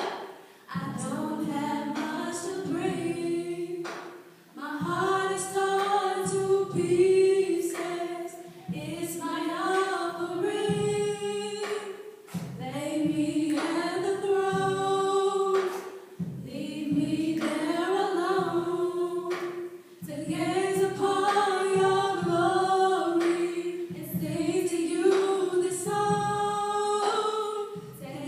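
Two women singing a cappella through handheld microphones and a PA, in sustained phrases about four seconds long with short breaths between them.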